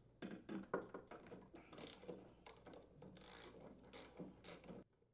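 Socket ratchet clicking in short, quick runs as it unthreads a lawn mower's blade adapter mounting bolt. The clicking is faint and stops abruptly about five seconds in.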